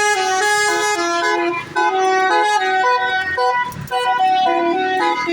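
Bus "telolet basuri" melodic air horn playing a tune: a quick run of loud held notes stepping up and down in pitch.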